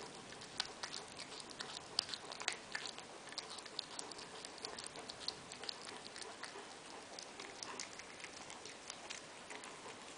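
Maine Coon cat chewing and crunching a mouse: a steady run of small, irregular wet clicks and crunches, a few sharper ones about two to three seconds in.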